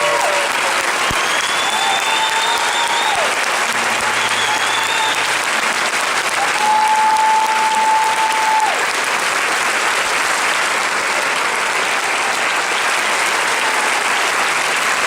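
A large congregation applauding steadily, with a few long whistles rising above the clapping.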